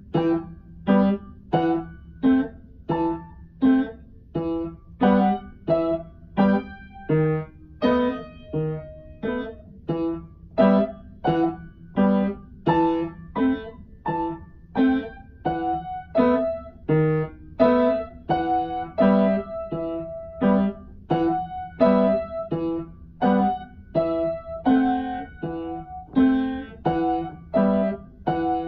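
Upright piano improvising in E minor, played as a steady stream of short, detached chords and notes, about one and a half a second, each dying away before the next.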